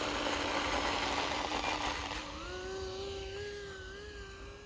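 Twin electric motors and propellers of an E-flite V-22 Osprey RC model at takeoff throttle, nacelles tilted forward for a rolling takeoff. A rushing noise over a steady buzz for about two seconds, then a cleaner propeller whine that rises a little in pitch and fades.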